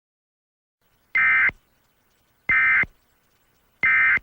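Emergency Alert System end-of-message signal: three short bursts of modem-like data tones, about a second and a half apart, marking the end of the alert.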